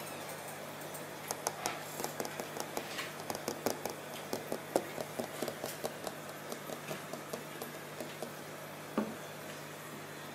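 Aquarium air pump humming steadily under the bubbling of an air stone, with a run of light, irregular taps and clicks of fingers on the tank glass for several seconds and one more sharp tap near the end.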